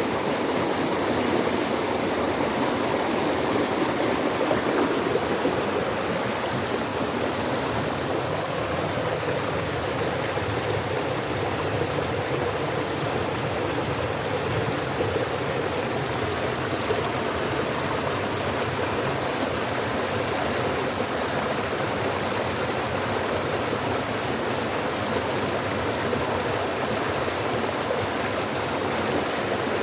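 Flowing water making a steady, unbroken rushing sound.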